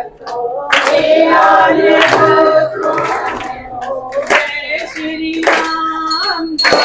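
A group of voices singing a Hindu devotional bhajan in chorus, with hand clapping. A high ringing tone comes in near the end.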